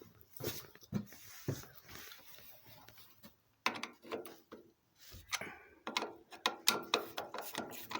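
Hand work on a motorcycle: tools and metal parts clicking and knocking, sparse at first, then a denser run of quick sharp clicks in the second half.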